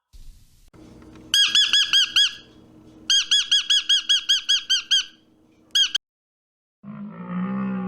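An animal's rapid series of high, squeaky calls, about eight a second, in two runs with one more call after a short pause. A lower, drawn-out animal call begins near the end.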